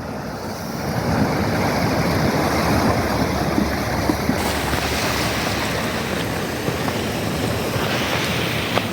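Steady rushing wind and road noise from a vehicle moving along a rough dirt road, with a few faint knocks.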